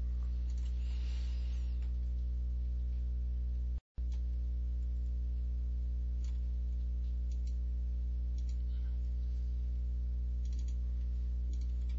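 Steady low electrical mains hum with its overtones in the recording, cut out by a brief dropout about four seconds in. A few faint mouse clicks sound over it in the second half.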